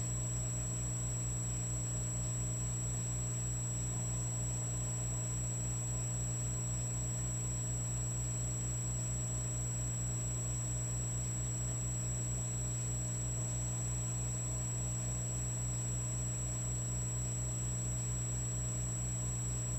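Electric fireplace log set giving off a steady electrical hum and buzz, with a fast low pulsing underneath and a thin high whine.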